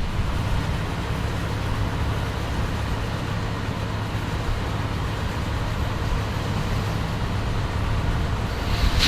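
Heavy diesel farm machinery running steadily under harvest load: a continuous low engine hum with broad mechanical noise over it.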